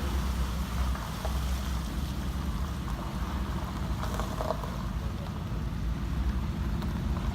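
Steady low rumble of an SUV driving off-road.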